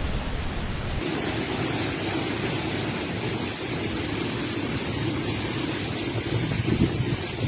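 Cyclone wind and heavy rain: a steady rush of wind-driven rain with wind buffeting the microphone. The low rumble drops away about a second in.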